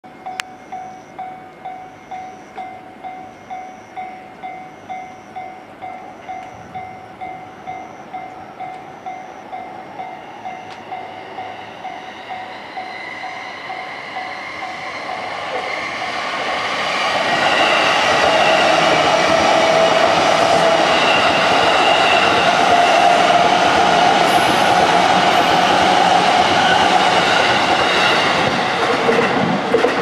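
Level-crossing warning bell dinging about twice a second, then a JR East E233-series electric commuter train approaching and passing, its wheels and traction motors growing loud from about halfway and staying loud.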